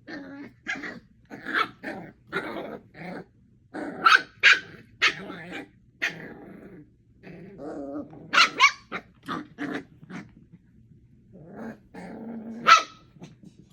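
Eight-week-old puppies play-fighting: a run of short growls and high, sharp yips and barks at an uneven pace. The loudest yips come about four seconds in, around eight and a half seconds, and near the end.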